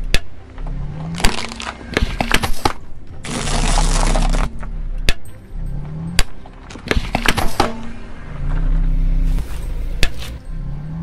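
A car tyre rolling over and crushing small objects, giving a series of sharp cracks and snaps. About three seconds in there is a second of dense crunching and crackling.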